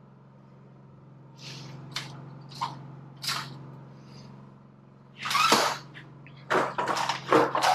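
Aluminum trim stock being handled and bent on a sheet-metal brake: a few light knocks and clicks, then louder scraping and rattling of the sheet metal from about five seconds in, over a steady low hum.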